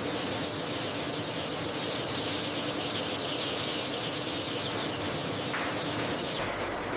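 A mass of day-old chicks peeping together in a dense, steady chorus over the low hum of conveyor machinery. The peeping drops away about five and a half seconds in, leaving the machine noise.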